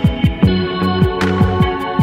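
Electronic background music: a steady beat of deep kick drums over held chords.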